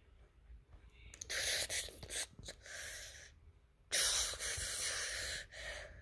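Breathy hissing, like a person's breaths close to the microphone: three bursts, the last and loudest lasting about a second and a half.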